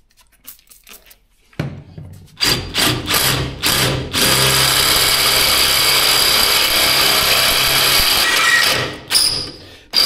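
Electric drill boring through a metal bracket: a few short bursts, then a steady run of about four and a half seconds with a thin high whine, a stop, and a restart near the end. The bit is blunt.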